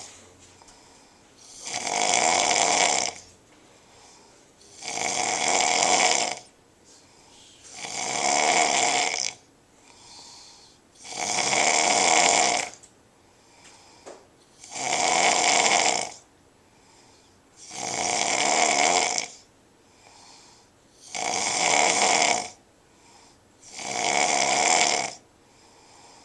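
A man snoring really loud and regularly: one long snore roughly every three seconds, eight in all, with faint breaths in the quiet between.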